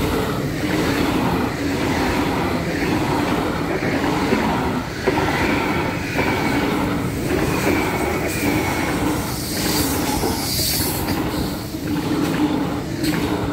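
ICE high-speed electric train passing close by at speed: a loud, steady rush of wheels on rail and air. A thin high whine comes and goes around the middle.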